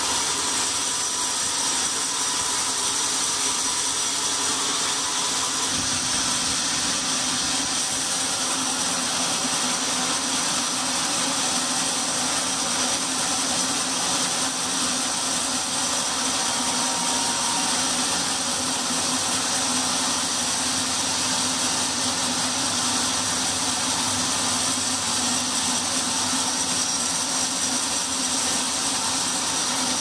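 Vertical band sawmill running steadily as its blade rips lengthwise through a large timber, with a steady high whine over the noise of the cut.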